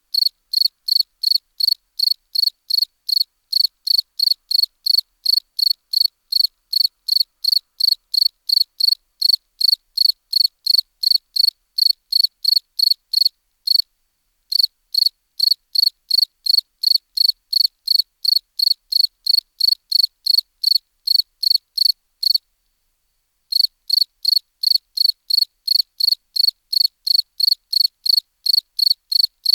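A field cricket chirping in a steady, even rhythm of about three high-pitched chirps a second, with no other background. There is a brief break about halfway through and a pause of about a second near the end.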